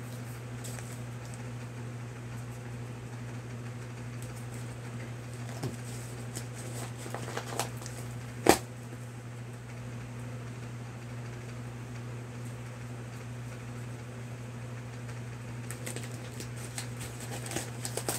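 Paper wrapping crinkling and rustling in spurts as a small wrapped gift is unwrapped by hand, with one sharp snap about eight and a half seconds in. A steady low hum runs underneath.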